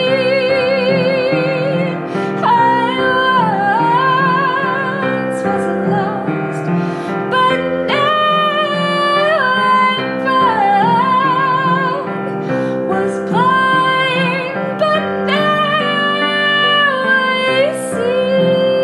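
A woman singing a slow melody with long held notes and vibrato, over instrumental accompaniment.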